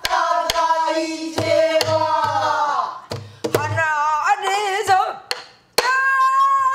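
A woman singing a Korean Namdo folk song in a sustained, wavering vocal style with heavy vibrato. She accompanies herself on a buk barrel drum, which gives sharp stick strokes and low thumps. Her voice breaks off briefly about five seconds in, then she holds a long, steady note.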